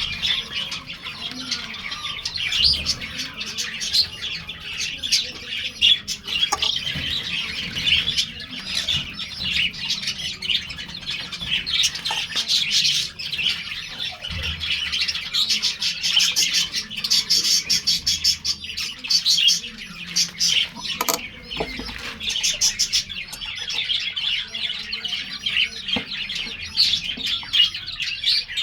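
Budgies chirping and chattering nonstop in a dense, high-pitched stream of calls, with a few sharp clicks, the clearest about 21 seconds in.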